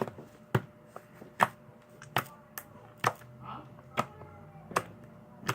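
Homemade slime being played with by hand, giving off sharp pops and clicks about eight times, irregularly spaced.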